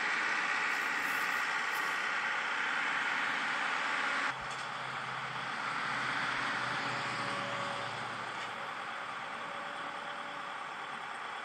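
Skid loader engine running steadily, with an abrupt drop in level and change of sound about four seconds in.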